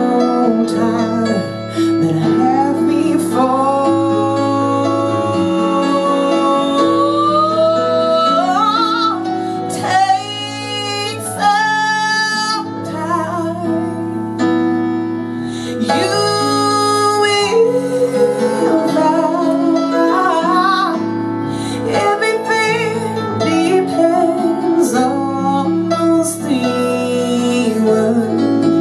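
A woman singing a jazz ballad live into a microphone over instrumental accompaniment, holding long notes with vibrato.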